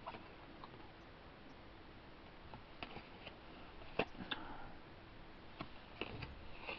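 Pokémon trading cards being handled and flicked through by hand: faint scattered clicks and light rustles, the sharpest click about four seconds in.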